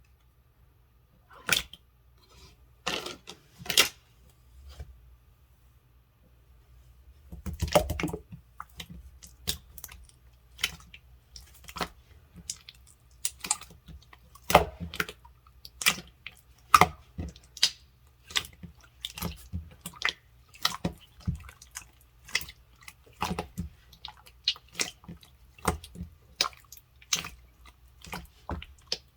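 Firm, stiff gold slime being pressed and stretched by hand, making sharp sticky clicks and pops. There are only a few in the first seconds, and from about eight seconds in they come quickly and irregularly.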